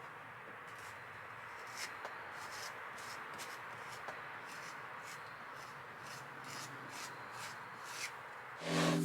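Steady rubbing noise from hands-on work, with scattered light ticks; music comes in near the end.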